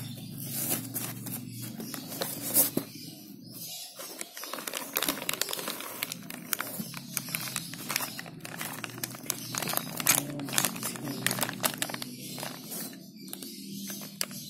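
Plastic packaging being crinkled and handled, with dense, irregular crackling and small clicks throughout.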